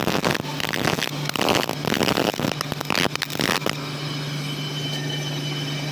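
MIG welding arc crackling with irregular pops while laying a root pass, stopping about two-thirds of the way through, after which a steady low hum remains.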